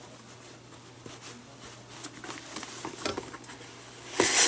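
Leather glove lace being threaded with a lacing needle through the fingertip holes of a Rawlings Pro Preferred glove: faint rustles and small clicks, then a short loud hiss near the end as the lace is drawn through the leather.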